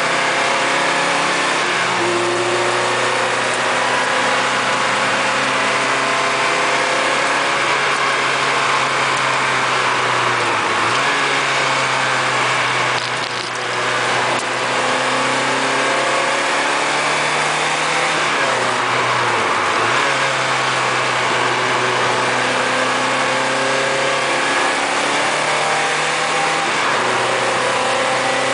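Lotus Elise Sport 160's four-cylinder Rover K-series engine heard from inside the cabin, revs climbing and falling as the car is driven hard. Upshifts come early, short-shifted, with brief breaks in the engine note at each gear change, a few times over the stretch.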